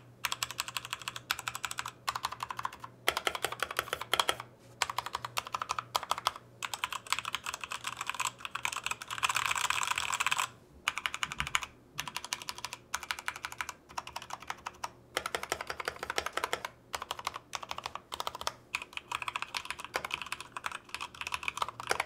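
Typing on a Redragon K617 Fizz 60% mechanical keyboard with red linear switches: a fast run of key clacks with short pauses. It starts on the stock keycaps, and partway through it continues with thick LTC KDA-profile PBT keycaps fitted, for a before-and-after comparison.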